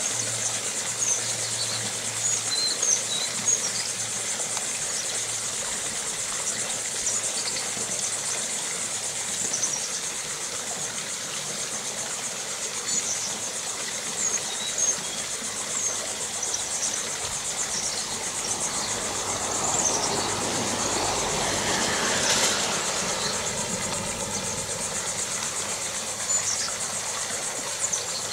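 Outdoor ambience beside still water: a steady low hum with scattered short, high chirps, and a louder swell of noise that builds and fades over several seconds about two-thirds of the way through.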